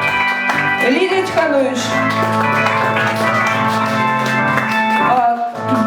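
Live band music: sustained keyboard chords under a lead line that bends and glides up and down in pitch, with a brief dip about five and a half seconds in.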